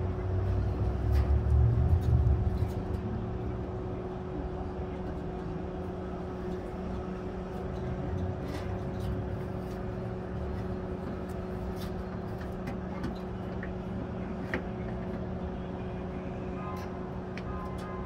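A steady machine hum, with a louder low rumble for the first few seconds and scattered light clicks.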